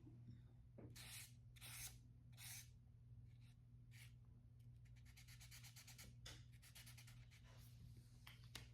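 Marker drawing on paper: a few separate scratchy strokes, then a quick run of short scribbling strokes about five seconds in, faint over a steady low hum.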